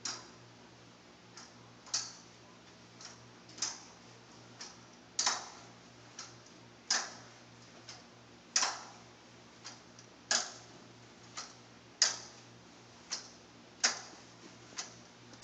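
Forearm crutches clicking in a steady walking rhythm, a louder click about every 1.7 s with a fainter click between each pair, as they are planted and swung with each stride.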